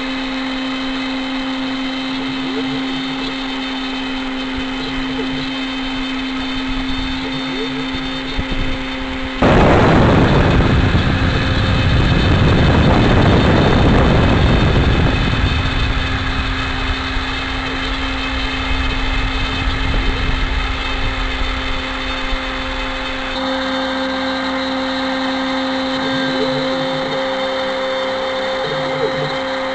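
Spindle of a WidgitMaster CNC router whining steadily as it mills MDF. About ten seconds in, a loud rushing cutting noise starts suddenly and fades away over about six seconds. Near the end the whine changes slightly in tone.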